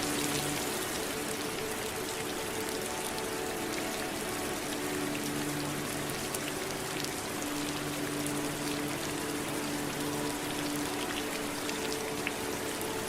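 Steady rain with individual drops pattering, a dense even hiss. Under it run soft held low notes that fade in and out, like a quiet ambient drone.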